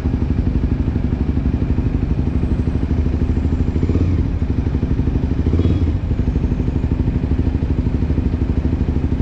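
Kawasaki Ninja 250 engine running through an Akrapovic aftermarket exhaust with the dB killer removed, ridden at low speed with a loud, fast-pulsing exhaust note. The engine sound swells briefly about four and again about six seconds in.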